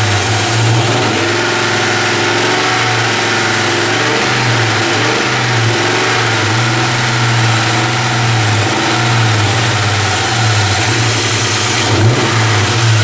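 High-mileage car engine idling cold just after a cold start, a steady even hum. It carries a light slapping noise that the owner can't place between valve noise and piston slap, a noise he says goes away once the engine warms.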